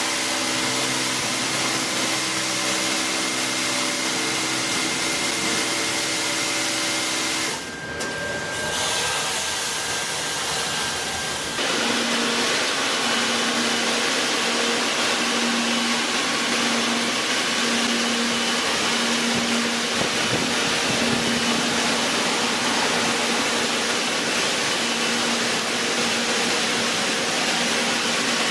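Touchless automatic car wash machine running: a steady hiss of high-pressure water spray with a motor hum for the first several seconds, a short dip, then from about twelve seconds in a steady blowing rush with a pulsing low hum as the gantry's air blowers dry the car.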